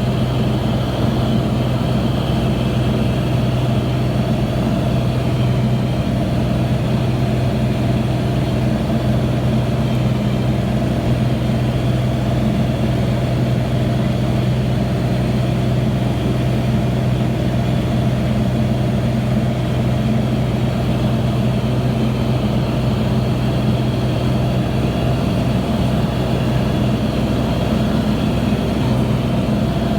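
An engine running steadily at a constant pitch, with a deep, even hum.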